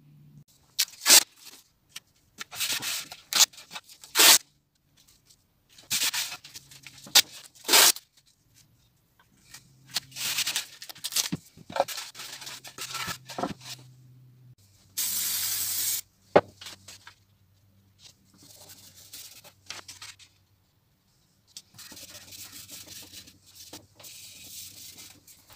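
Hands working blue painter's tape over a wooden board, with repeated bursts of tape being pulled off the roll and torn. About 15 s in comes a one-second steady hiss of spray-on glue. Near the end, paper templates are rubbed flat onto the taped board.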